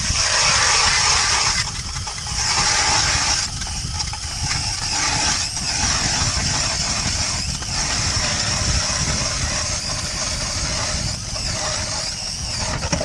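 DeWalt DC970 18-volt cordless drill spinning a 6-inch Clam ice auger, boring a hole through the ice. The drill's high motor whine and the cutting noise start abruptly, swell and ease as the auger bites, and stop just before the end.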